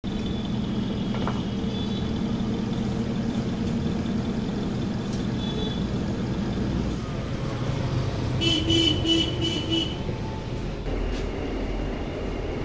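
Road traffic with engines running steadily, and a vehicle horn giving a quick run of short toots a little past the middle.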